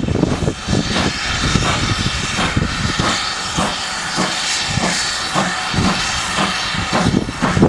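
GWR Manor class 4-6-0 steam locomotive No. 7823 working slowly, with a steady hiss of escaping steam under regular exhaust beats at about three a second.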